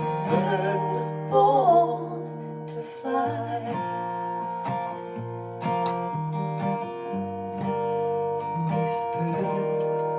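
Acoustic guitar strumming chords in the closing bars of a song, with a wordless sung vocal line over the first few seconds.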